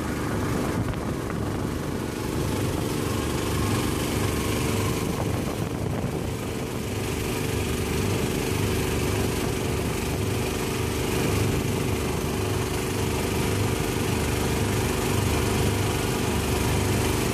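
Engine of a small river boat running steadily while under way: an even engine drone over a constant hiss.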